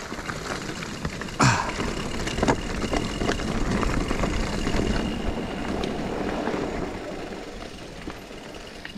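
Mountain bike ridden down a wet dirt trail: a steady rumble of tyres and frame rattle, with a sharp knock about a second and a half in and another about a second later as the bike hits bumps, plus smaller clicks from the chain and bike. A faint steady whine runs for a few seconds in the middle.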